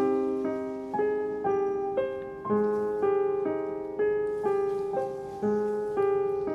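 Background piano music: a gentle melody of single notes struck about twice a second, each fading before the next.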